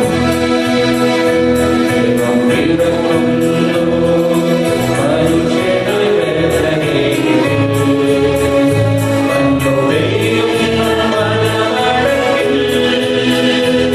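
Mixed choir of men and women singing a Malayalam Christmas carol into microphones. Electronic keyboard accompaniment with a steady beat.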